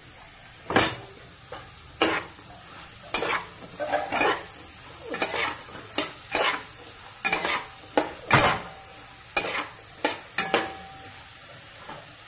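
A metal spatula scraping and turning diced vegetables in an aluminium kadai, about one stroke a second, over a light sizzle of frying oil.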